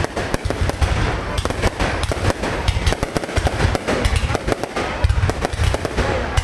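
Aerial fireworks display: a dense, rapid barrage of sharp cracks and bangs over a continuous low booming of shell bursts.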